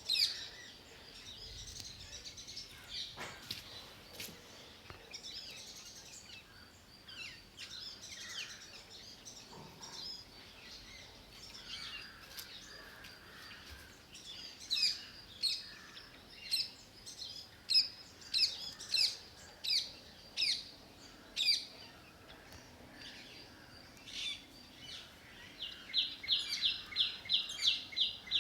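Several small birds chirping and calling. From about halfway, loud sharp calls repeat roughly every second, and near the end one bird gives a fast run of even notes, about five a second.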